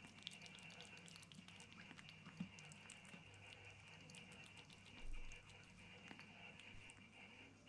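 Kitten licking a wet spill off a wooden chair seat: faint, quick little wet clicks of its tongue, with a soft low bump about five seconds in.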